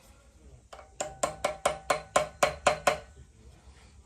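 A quick run of about ten sharp metal taps, roughly five a second, each with a slight ring: the counterweight being tapped home onto a rotary engine's eccentric shaft.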